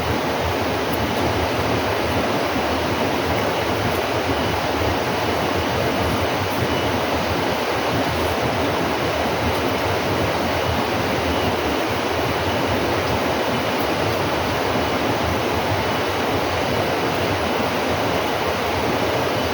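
Steady, unbroken rushing noise at an even level throughout.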